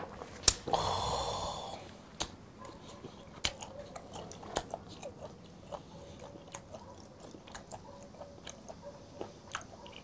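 A shot glass knocks down on the table, then a loud, wheezy exhale after a shot of soju, lasting about a second. After that, a person chewing raw brown croaker sashimi with small wet clicks and smacks.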